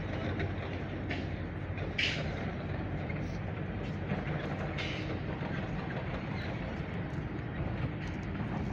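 Airbus A330-200 freighter's jet engines heard as a steady low rumble, with two brief hisses about two and five seconds in.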